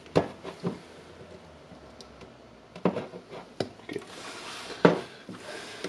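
Needle-nose pliers clicking and tapping against a wire and the battery's cell pack as the wire is bent to fit through a hole, about five sharp clicks in all. A soft rustling hiss runs through the second half.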